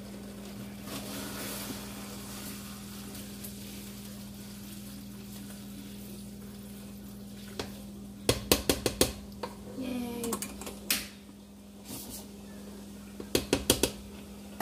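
A cooking utensil knocking and scraping against a metal cooking pot as pasta is stirred. The knocks come in a quick cluster about eight seconds in and again near the end, over a steady low hum.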